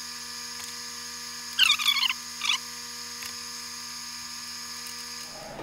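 Plastic squeeze bottle of wood glue giving a brief wavering squeak as glue is squeezed out along a wooden part, from about one and a half to two and a half seconds in, over a steady electrical hum.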